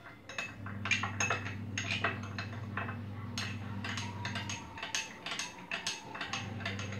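Metal spoon stirring a thin white batter in a small glass bowl: quick, irregular clinks and taps against the glass.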